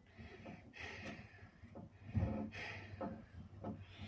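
A man's heavy, labored breathing in a series of loud breaths, which he puts down to lungs damaged by disease, with a few light clicks from hardware being handled.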